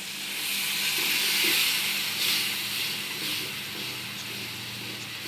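Tamarind-juice masala gravy sizzling and bubbling in hot oil in a frying pan, a steady hiss that swells in the first couple of seconds and then eases.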